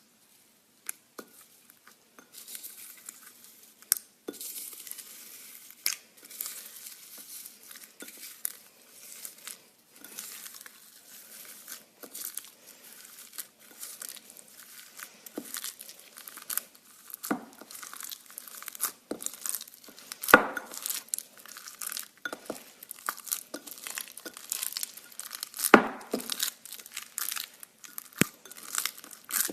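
Slime being squished and stretched by hand, giving a dense crackling with sharp pops, two of them louder near the middle and toward the end.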